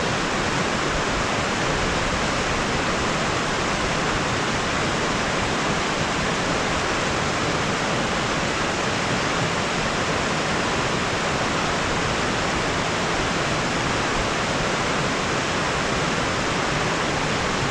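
Steady, even rushing of water pouring over and between rocks at a mountain lake's outlet below an old stone dam.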